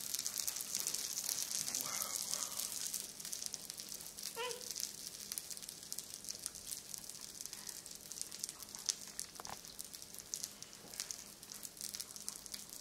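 A faint, steady crackling hiss, like sizzling, with scattered tiny clicks. A brief faint voice is heard about four seconds in.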